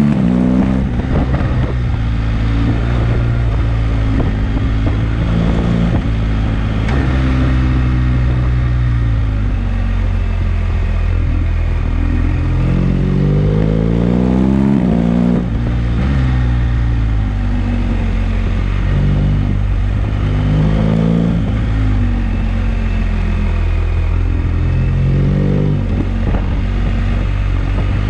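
BMW GS motorcycle's boxer-twin engine pulling and easing off through a run of bends, its pitch climbing and falling several times, over a steady rush of wind and road noise.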